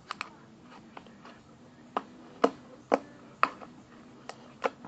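Soft slime being squeezed and poked by hand, giving a string of sharp little clicking pops at irregular intervals, about one every half second.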